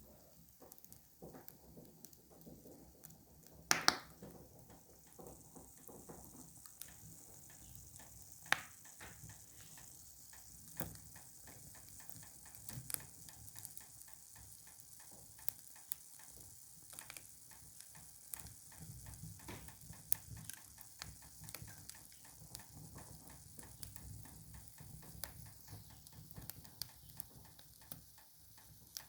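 Fire crackling faintly, with irregular small snaps and pops over a light hiss; a louder pop about four seconds in and another about eight and a half seconds in.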